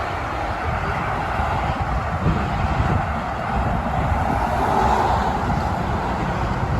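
Steady rush of motorway traffic, with wind buffeting the microphone.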